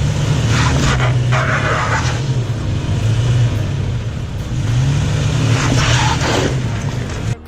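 Toyota Tacoma pickup truck's engine pulling under load, its pitch rising and falling as the throttle changes, cutting off abruptly near the end.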